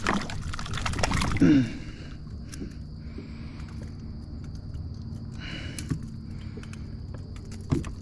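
A hooked pickerel thrashing and splashing at the surface beside the kayak for about the first second and a half. After that come quieter small metal clicks and taps as pliers work the lure's hooks out of its mouth.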